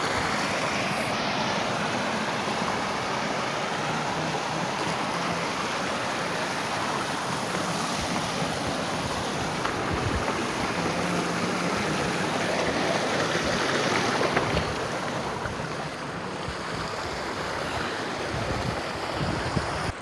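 Mountain stream rushing over rocks, a steady wash of water noise that softens a little about three-quarters of the way through, with a few low thumps on the microphone.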